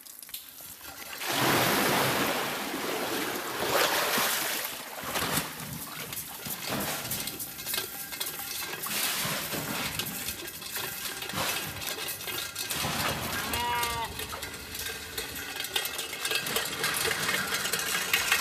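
Water gushing and splashing as a large tarpaulin well bag drawn from a deep desert well is emptied, starting suddenly about a second in and going on as a steady splashing rush. A short animal bleat comes near the end.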